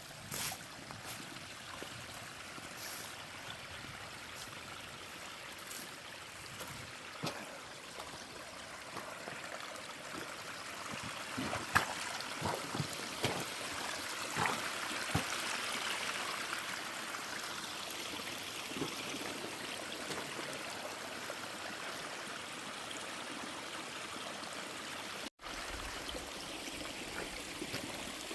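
Water of a small stream running steadily, growing louder about a third of the way in, with a few scattered sharp knocks.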